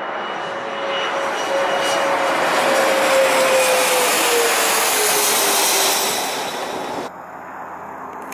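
Bombardier CRJ-200's twin rear-mounted GE CF34 turbofans passing low overhead on approach: a jet roar with a whine that drops in pitch as the aircraft goes by, loudest in the middle. About seven seconds in it cuts off abruptly, giving way to a fainter, distant aircraft engine sound.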